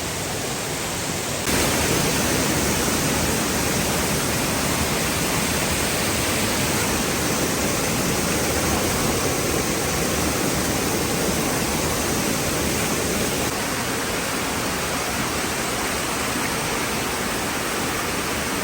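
Waterfall's water rushing as a loud, steady, even noise, which steps up in level about a second and a half in.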